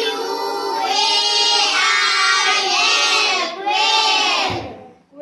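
A group of young children chanting together in sing-song unison, reciting the spelling word 'quail' aloud as a class.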